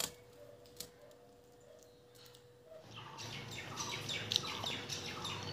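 Birds chirping repeatedly with short falling calls, setting in about three seconds in after a near-silent stretch with only a faint steady hum.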